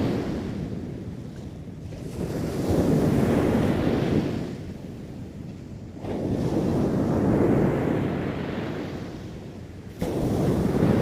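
Sea waves breaking and washing up on a beach, the surf swelling and fading about three times, with wind buffeting the microphone.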